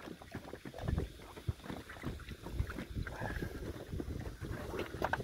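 Wind buffeting the phone's microphone in an uneven rumble, with scattered short knocks and rustles from handling the phone as it is moved about.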